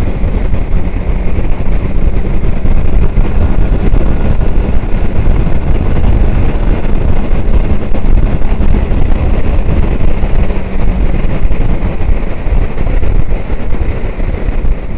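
Motorcycle on the move: loud, steady wind rush buffeting the microphone, with engine and road noise underneath.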